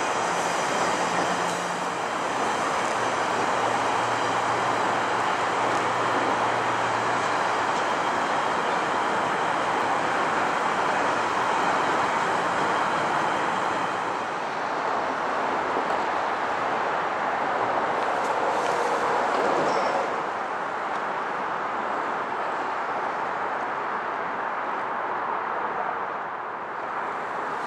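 GO Transit bilevel commuter train rolling past: a steady rush of wheel and rail noise, with a low hum under it in the first few seconds. The noise eases off about twenty seconds in.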